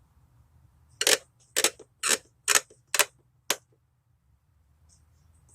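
Six sharp clicks about half a second apart, ending after about three and a half seconds.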